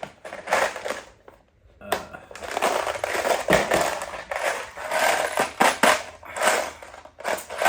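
Steel sockets from a Pittsburgh 40-piece socket set clattering and knocking against each other and their case as they are handled and tossed back in. There are a few clicks at first, then dense, continuous rattling from about two seconds in.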